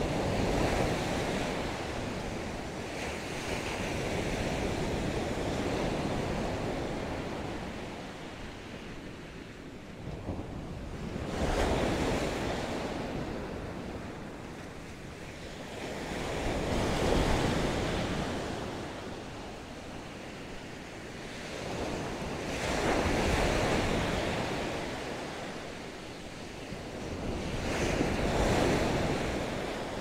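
Ocean surf breaking on the beach, each wave swelling to a rush and fading away, about once every five to six seconds.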